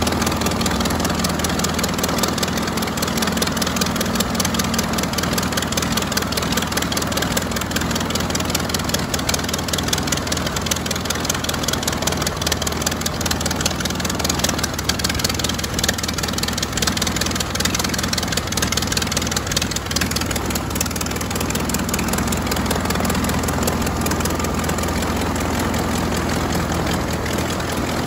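A Curtiss OX-5 water-cooled V8 in a 1928 Command-Aire biplane running steadily on the ground, with its propeller turning.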